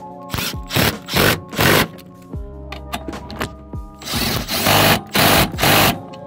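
Cordless impact gun hammering a seat-mounting bolt tight through a socket and long extension, in short trigger bursts: three quick bursts, a pause, then three longer bursts.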